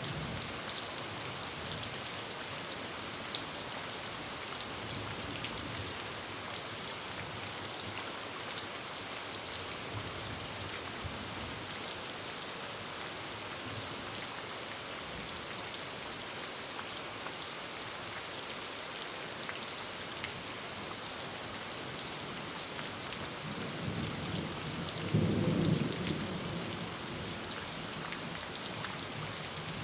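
Heavy rain falling steadily on a corrugated tin roof, an even hiss dotted with sharp drop clicks. A low roll of thunder builds toward the end and peaks briefly.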